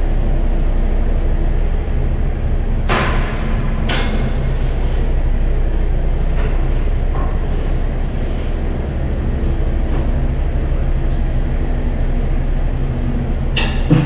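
Narrowboat diesel engine running steadily, a loud low rumble echoing in a brick canal tunnel. A few sharp knocks come about three and four seconds in and again near the end.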